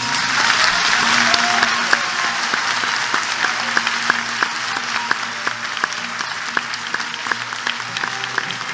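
Audience applauding, the clapping dense and loudest for the first couple of seconds, then thinning into more separate claps.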